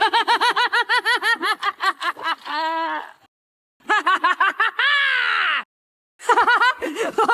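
Lord Dominator's high-pitched, rapid cackling laughter in three separate bursts with short gaps between; the first two bursts end on a long drawn-out note, the second one falling in pitch.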